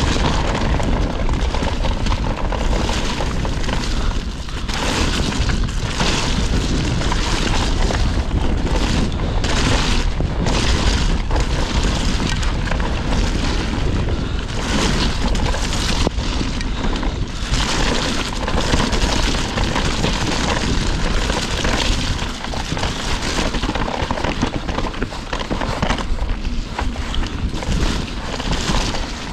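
Mountain bike descending a muddy dirt trail: wind buffeting the camera microphone as a constant low rumble, with tyre noise and the bike clattering over bumps.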